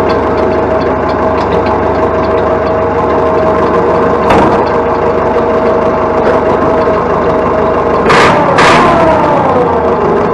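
Massey Ferguson 165's Perkins AD4.212 four-cylinder diesel running steadily. A sharp clack comes about four seconds in and two more close together about eight seconds in, after which the engine note falls a little.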